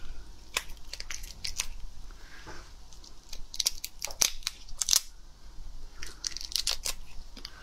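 Shell of a large raw prawn cracking and crackling as it is peeled apart by hand, in irregular clusters of sharp clicks and small tearing sounds.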